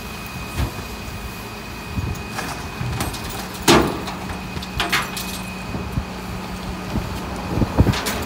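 Rear-loader garbage truck running at idle with a steady hum, while rubbish is thrown by hand into its rear hopper. There is a loud thump a little over a third of the way in and a cluster of clattering knocks near the end.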